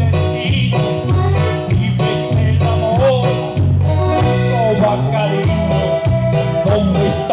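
A man singing into a microphone with a live band: electric bass, keyboard and drums keeping a steady beat.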